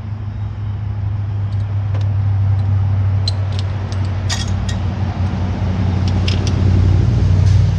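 An engine running steadily with a low hum that grows louder, with a few sharp metallic clinks of hand tools over it between about three and seven seconds in.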